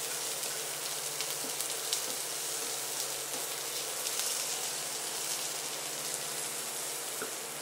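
Chopped onion, garlic and leeks sizzling steadily in oil in a nonstick frying pan over low heat, with a slotted plastic spatula stirring through them.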